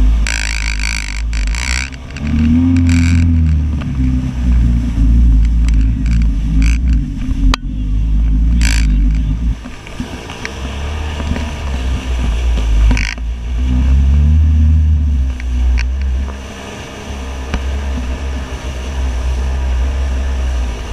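Polaris personal watercraft running fast across the water, its engine note swelling a couple of times, under heavy wind buffeting on the microphone and the hiss and slap of spray.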